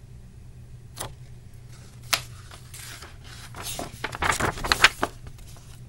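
Two light taps, then the page of a paperback picture book being turned, rustling and crackling, loudest about four to five seconds in.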